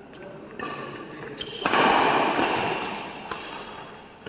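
Badminton rackets striking a shuttlecock during a doubles rally, sharp hits echoing in a large hall. About a second and a half in, a louder stretch of noise begins and slowly fades.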